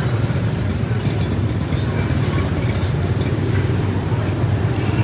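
Steady low rumble of busy street noise with passing traffic, with faint background voices.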